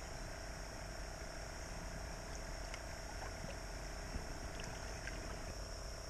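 Steady creek-side ambience: a constant high insect drone, with low water stirring around wading legs and a few faint ticks.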